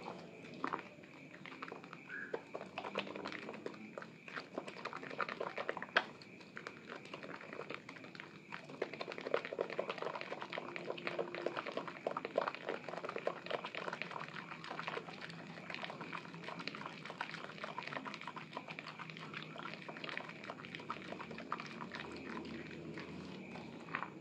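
Soaked Asepso Fresh Orange bar soap being squeezed and mashed by hand in thick lather: a continuous run of wet squelches and crackling foam bubbles.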